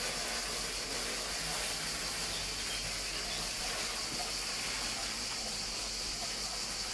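Steady high-pitched insect chorus, a constant buzzing hiss with no breaks.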